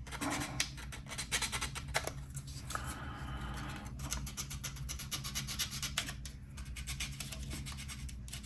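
Sanding stick rubbed in quick back-and-forth strokes over a plastic model-kit part, taking the sprue nubs off the lower hull.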